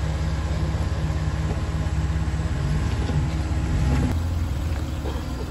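Jeep's engine running steadily at low revs on a rocky off-road trail, its note changing about four seconds in.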